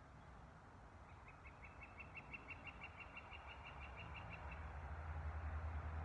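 A bird calling a quick run of short, high notes, about six a second, for some three seconds. A low rumble builds toward the end.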